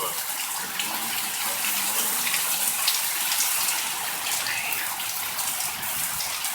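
Heavy rain pouring down steadily, a dense even hiss, with faint voices murmuring underneath.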